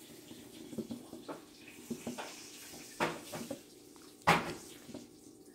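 Scattered soft knocks and clicks of hands at work, with one sharper knock about four seconds in.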